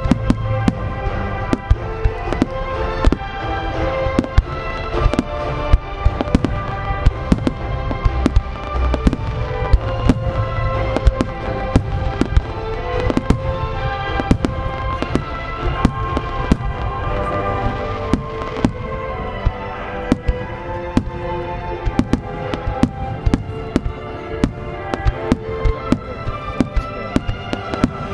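Aerial firework shells bursting in quick succession, dozens of sharp bangs and cracks, over music that accompanies the display.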